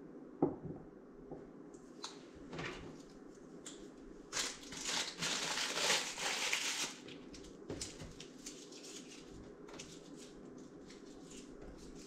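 Packaging being handled: plastic and paper wrapping crinkling, with a sharp click about half a second in and a louder, denser stretch of crinkling from about four to seven seconds, then scattered small taps and rustles.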